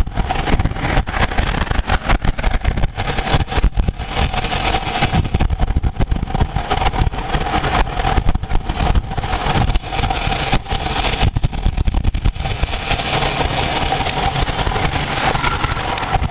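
Wind buffeting a moving microphone during a road bike race, with a steady hum and road noise underneath.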